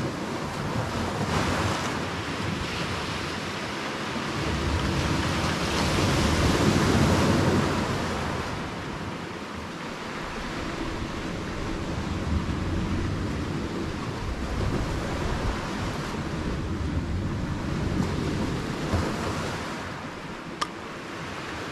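Sea waves and wind: a steady rushing wash that swells about six seconds in and then eases, with one sharp click near the end.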